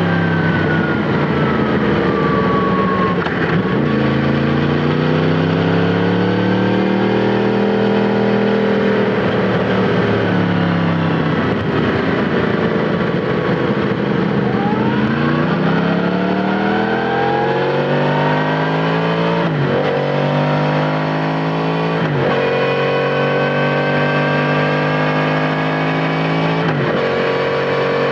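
Yamaha MT-10 SP's crossplane inline-four running through an Akrapovic titanium slip-on exhaust, revs rising and falling as it is ridden. In the second half there are three quick upshifts, each a sudden drop in revs followed by a steady climb.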